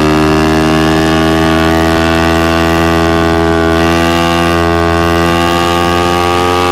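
Yamaha MT-25's parallel-twin engine running through a Shadux aftermarket racing exhaust, held at a steady rev with its pitch creeping slowly upward.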